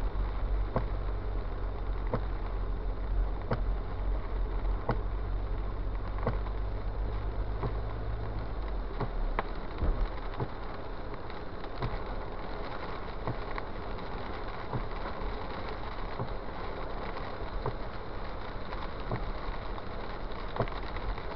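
Road noise from a car driving on a wet road in the rain: a steady hiss with a low rumble that drops away about eight seconds in. Light clicks recur about every second and a half.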